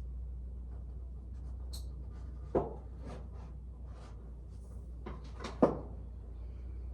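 Things being handled and set down: two sharp knocks about three seconds apart among lighter clicks and clunks, over a steady low hum.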